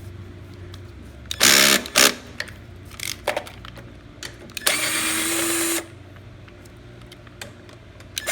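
Cordless power drill/driver with a 10 mm socket spinning out bolts on a small mower engine, running in short bursts: a loud one about one and a half seconds in and a steady run of about a second near the five-second mark.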